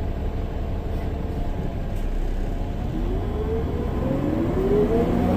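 CNG-powered Gillig Low Floor BRT Plus transit bus running with a steady low rumble, then accelerating from about halfway, with a whine that rises steadily in pitch.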